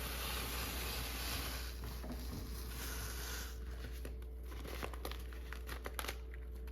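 Blue painter's tape being peeled back off scanner glass, a steady tearing hiss that eases off between about two and three and a half seconds in. It is followed by scattered small crinkles and clicks of the tape being handled.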